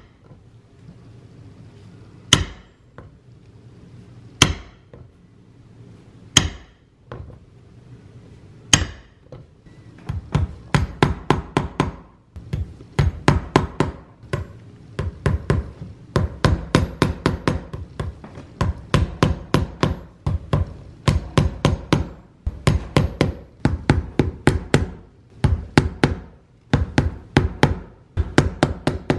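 A cobbler's hammer tapping small brass tacks into a leather shoe heel. First come a few single ringing strikes a couple of seconds apart, then, from about a third of the way in, quick runs of light taps, several a second, in short groups.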